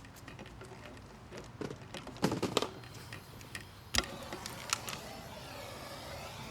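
Tools and fittings knocking and clinking during a pipe repair, with a single sharp knock about four seconds in, after which a steady hissing noise carries on.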